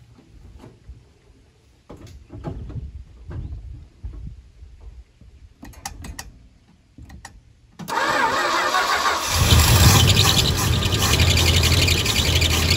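Carbureted V8 in a 1969 Dodge D200 pickup, on a Carter AFB four-barrel carburetor, being started: quieter irregular clatter first, then it fires suddenly about eight seconds in and keeps running loud.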